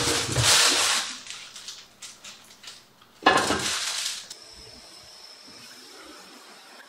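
Rustling and clattering of things being handled in a wooden drawer, two loud bursts with a few clicks between, then a stick vacuum starts about four seconds in and runs with a steady high whine and hiss as its crevice nozzle cleans out the empty drawer.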